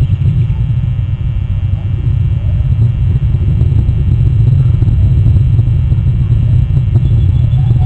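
Steady low rumble of wind buffeting the eagle nest camera's outdoor microphone.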